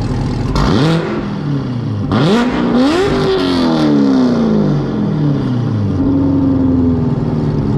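The C7 Corvette Z06's supercharged 6.2 L LT4 V8 is revved twice from idle through a Corsa 14777BLK valved exhaust with the valves open, routing the exhaust around the muffler almost like straight pipes. The first rev is a short blip about half a second in. The second is higher and starts around two seconds in, then falls back slowly to a steady idle. It is so loud.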